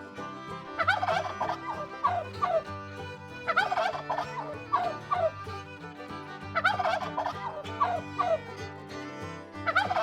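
Turkey gobbling, a rapid warbling call repeated about every three seconds, over steady background music.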